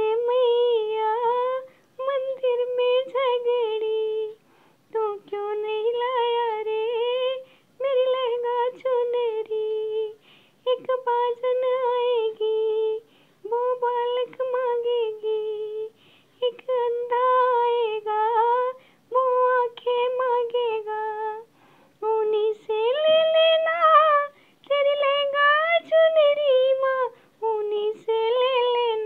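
A woman singing a bhajan, a Hindu devotional song, unaccompanied, in phrases about two seconds long with short breaks for breath between them.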